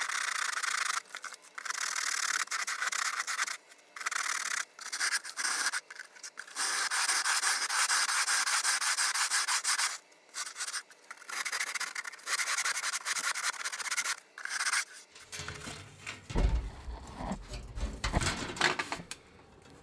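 Refractory material being scraped and abraded down by hand in repeated stop-start strokes, a dry scratchy rasping. About fifteen seconds in it gives way to a few knocks and handling bumps.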